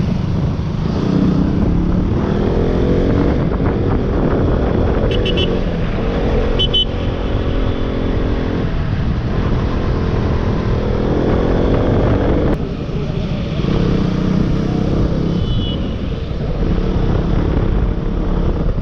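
Motorcycle engine running while riding, its pitch rising and falling with the throttle, over a rumble of wind and road noise.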